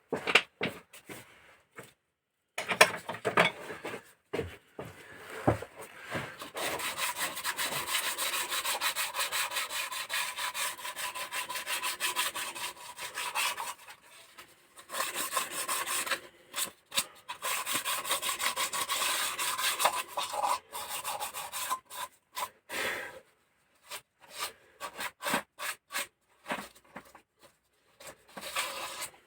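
Hand scraping or filing on a hard surface: a few separate knocks, then two long runs of fast back-and-forth strokes with a short pause between them, then scattered shorter strokes.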